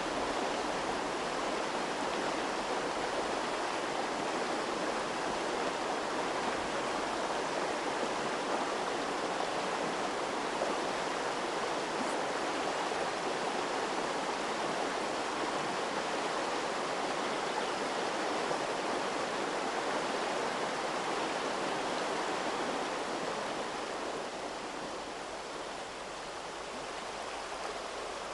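Shallow rocky river running over stones: a steady rushing of water, a little softer near the end.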